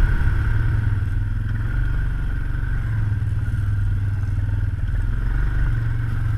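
Quad ATV engine running steadily at a constant note as it rides along.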